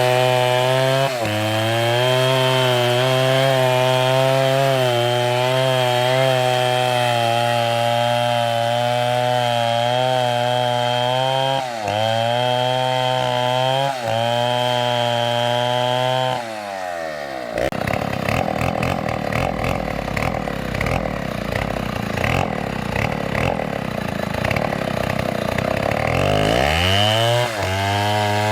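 Stihl chainsaw running at high revs through a cut, the engine note wavering under load with a few brief dips. About 17 s in the revs fall away quickly and the saw runs slow and rough for about ten seconds, then is revved back up to full speed near the end.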